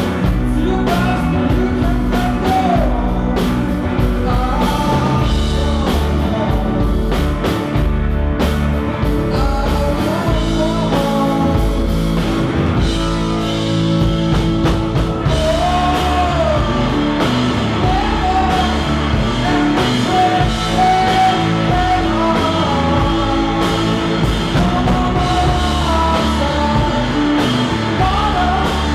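Live blues-rock song: a man singing over electric guitar and drums.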